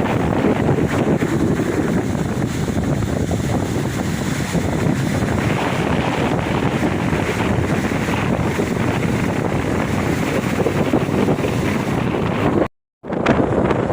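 Ocean waves washing onto a beach, a continuous surf rush with wind buffeting the microphone. The sound cuts out completely for a split second near the end, then resumes.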